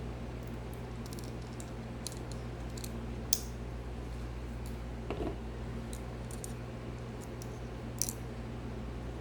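Metal implements of Leatherman multi-tools clicking and snapping as they are handled and opened: a scattering of sharp, irregular clicks, the loudest about three seconds in and again near eight seconds, over a steady low hum.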